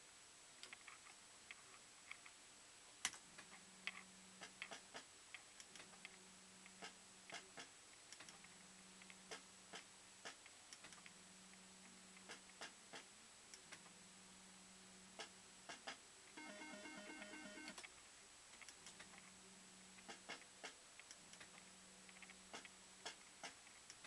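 JPM Topsprint fruit machine playing spin after spin, faint: each spin a low reel-motor hum of about a second and a half, coming round every two seconds or so, with sharp clicks as the reels stop. Partway through, the machine gives a short run of electronic beeps.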